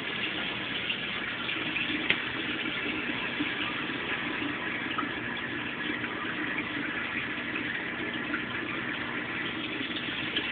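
Steady rush and splash of water running through a reef aquarium's sump and plumbing, with a single sharp click about two seconds in.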